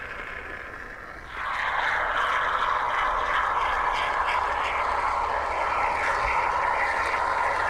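Can of insulating spray foam hissing steadily as foam is sprayed into the gap between the door jamb and the wall framing, starting about a second in.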